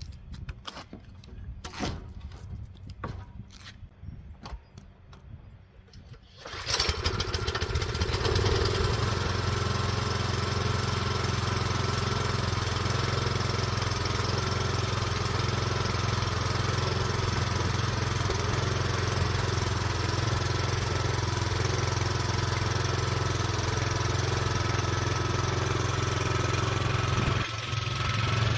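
A series of light clicks and knocks, then an engine starts suddenly about six and a half seconds in and runs steadily at idle.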